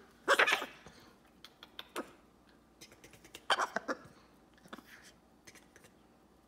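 Blue-and-gold macaw making short, abrupt vocal sounds: a loud pair just after the start and another cluster about three and a half seconds in, with scattered small clicks between.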